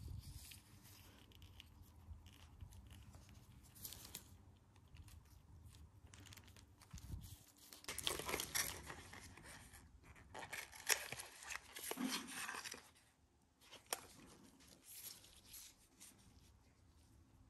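Disposable plastic gloves and plastic packaging crinkling and rustling as small items are handled and pulled from a drawstring pouch, with scattered light clicks. The handling is busiest and loudest in the middle.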